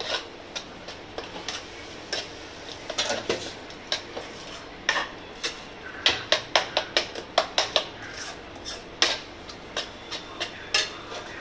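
Spoon knocking and scraping against a non-stick kadhai while stirring masala frying in oil. Irregular strokes, then a quick run of about five strokes a second from about six to eight seconds in.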